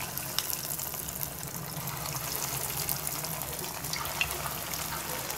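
Breaded poha (flattened-rice) cutlets shallow-frying in hot oil in a pan: a steady sizzle with scattered small crackles, over a low steady hum.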